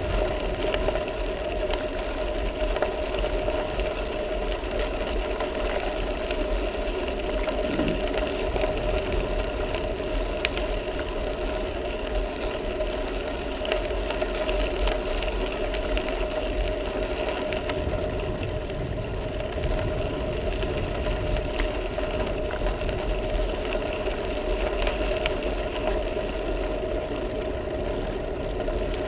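Bicycle riding along a gravel path, heard from a camera mounted on the bike: steady rolling rumble of the tyres with a constant mid-pitched hum.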